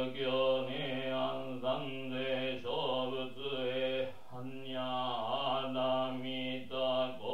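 A Jodo Shinshu Buddhist priest chanting a sutra solo in a steady, low monotone, syllable after syllable, with a brief pause for breath a little past the middle.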